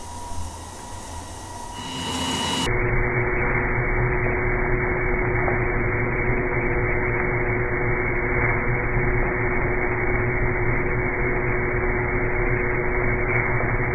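Diamond wire saw running steadily as it cuts through a granite boulder, a constant mechanical hum with a steady low tone. About three seconds in the sound jumps louder and becomes duller and more muffled, then holds steady.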